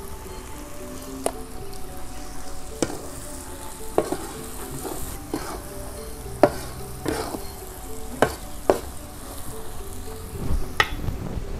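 Metal spatula stirring and scraping a stir-fry of bitter melon in a steel wok over a low sizzle, with irregular clanks of the spatula against the wok.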